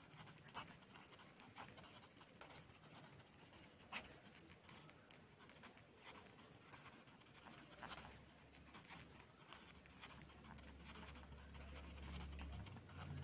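Faint scratching of a pen writing on paper, with a few light taps now and then.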